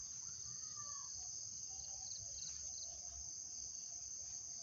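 Insects shrilling in a steady, high, continuous chorus, with a faint bird call about a second in.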